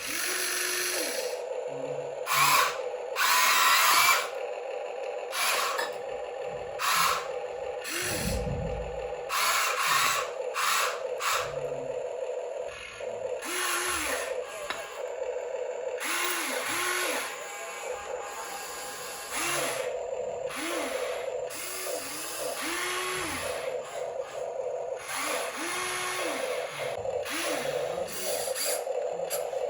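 Small electric motors and gearboxes of radio-controlled model machines whining in short runs, their pitch rising and falling as they speed up and slow down over a steady buzzing hum, with repeated bursts of scraping and crunching.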